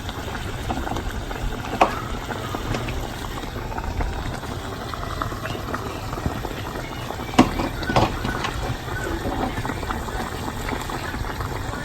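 Egusi soup with its tomato base bubbling and crackling steadily in the pot on the heat, with a few sharp knocks, the loudest about seven seconds in.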